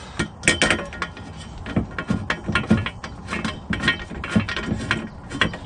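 Socket ratchet clicking in short irregular runs as a 15 mm bolt for a Steeda jacking rail is worked into the car's underbody.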